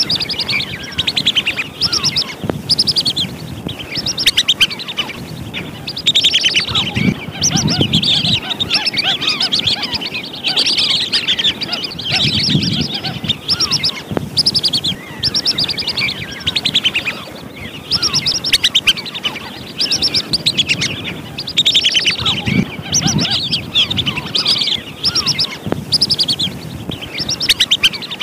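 Flock of wandering whistling ducks calling: a dense, unbroken chorus of short, repeated high whistles. It is a lure recording for drawing wild whistling ducks in to trap.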